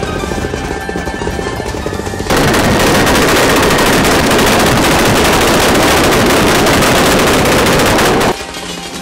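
Toyota Supra's anti-lag system firing a rapid, continuous string of pops and bangs, starting suddenly about two seconds in, running about six seconds, and cutting off abruptly near the end.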